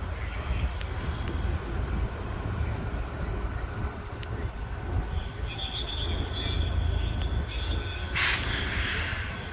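Steady low rumble of idling engines. A steady whine joins about five and a half seconds in, and a sharp hiss lasting about a second comes near the end.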